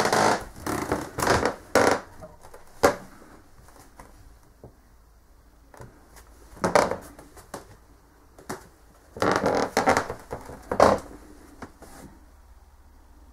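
Irregular knocks, creaks and rustles of someone moving about inside a small wooden cabin, coming in clusters with quieter gaps between them.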